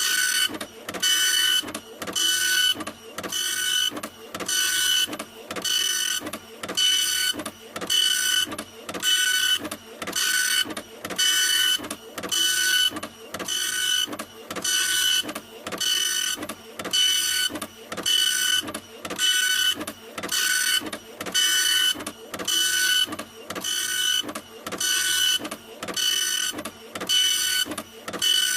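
Printer running, its mechanism making an even run of whirring passes, about one a second, each with a steady high whine in it.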